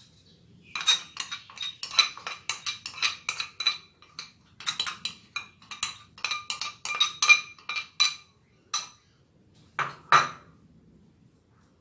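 Glass container clinking against a stainless steel mixing bowl in quick runs of ringing taps, about three or four a second, as tapioca starch is knocked out of it into the flour. Two duller knocks near the end.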